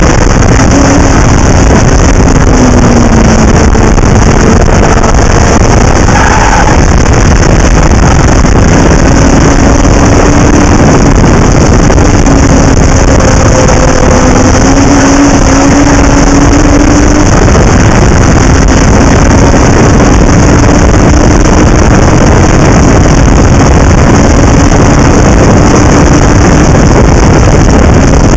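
Onboard sound of a Legend race car at racing speed: loud, steady wind and road noise on the camera microphone, with the engine note faint beneath it, slowly rising and falling as the revs change through the corners and straights.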